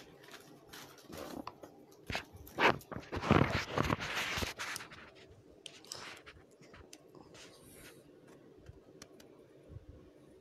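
Handling noise from a mobile phone being picked up and moved: a few rubbing and rustling sounds in the first half, the loudest about three to four seconds in, then scattered light clicks and taps.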